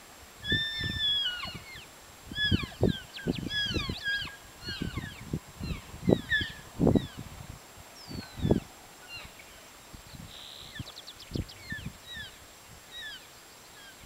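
Elk cows and calves chirping and mewing to each other: many short, high, falling calls, often overlapping, thick in the first half and thinning out later. Gusts of wind buffet the microphone with low rumbles throughout.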